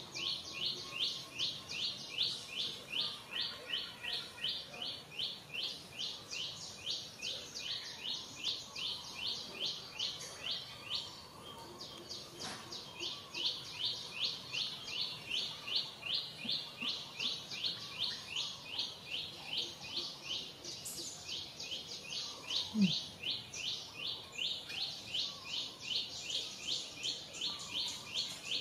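Rhythmic high-pitched chirping from an unseen animal, an even run of about four chirps a second that breaks off briefly near the middle and then resumes.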